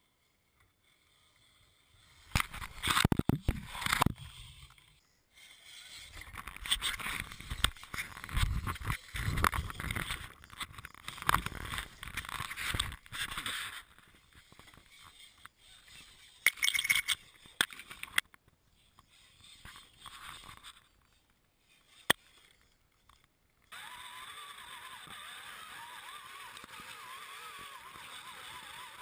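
RC4WD Trail Stomper scale RC crawler with an Axial electric motor driving over twigs, roots and dirt. Irregular bursts of scraping and knocking come from the tyres and chassis on the debris. Near the end a steady running noise from the truck's motor and drivetrain takes over.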